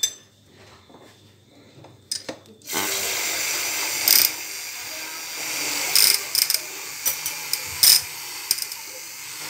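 Tony'C Super Rotonda handheld frappé mixer switched on a little under three seconds in, its small motor whirring steadily as the whisk whips coffee into froth in a glass, with a few sharp clicks now and then.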